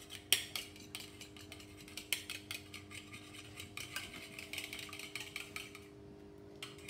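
A fork beating raw egg in a small ceramic bowl: quick, irregular clicking taps of metal on the bowl that stop about six seconds in.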